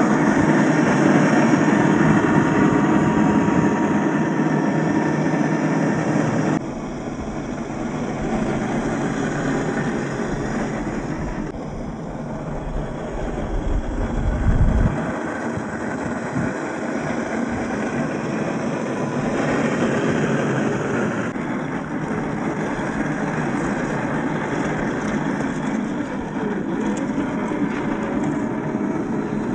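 Electric 1/10-scale RC crawler (MST CFX with an RC4WD 20T motor) driving off-road: a steady whirr of motor and gears mixed with tyre and terrain noise, changing abruptly several times, with a brief low rumble about halfway through.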